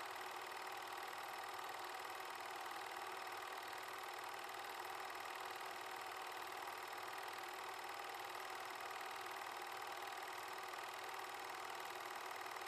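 8mm film projector running: a steady mechanical whir with a fast, even flutter that does not change.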